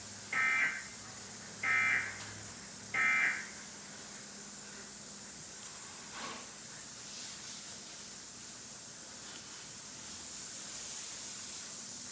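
Emergency Alert System data tones: three short bursts about a second and a half apart, the end-of-message code that closes the alert, then a steady hiss.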